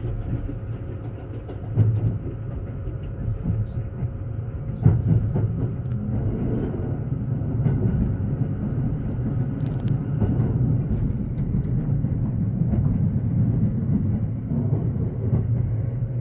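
Haruka limited express train running at speed, heard inside the carriage: a steady low rumble of wheels on rails with a faint steady hum, and a couple of brief knocks, about two and five seconds in.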